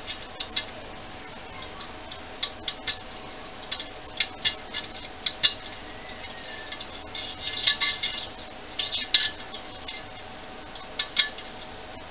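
A straightened paperclip prodding and scraping limescale loose inside the boiler of an early-1970s Wilesco model steam engine, ticking against the glass and scale. The sound is light, sharp metallic clicks and scratches at irregular intervals, some in quick clusters.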